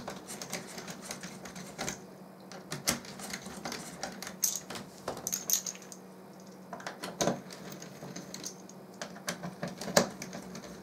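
Irregular clicks and light taps of a small screwdriver and hard plastic parts being handled on a wooden tabletop, the loudest about ten seconds in, over a faint steady hum.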